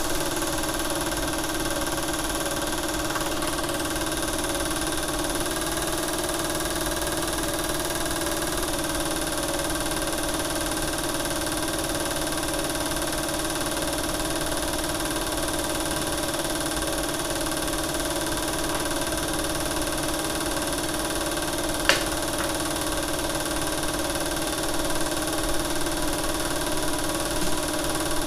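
Film projector running: a steady mechanical hum that does not change, with one sharp click about three-quarters of the way through.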